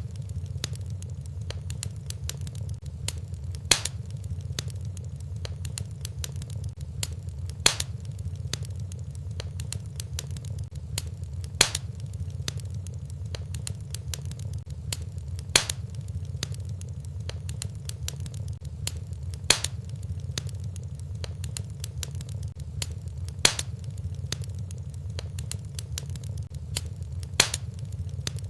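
Wood fire burning in a fireplace: a steady low rumble with constant small crackles and a louder pop about every four seconds.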